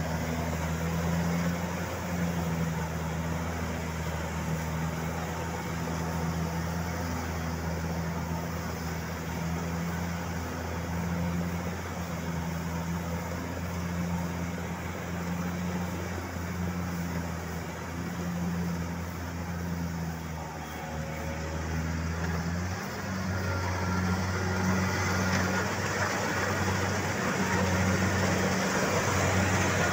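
Kubota Harvest King combine harvester's diesel engine running steadily in a low drone, growing louder over the last few seconds as the machine is neared.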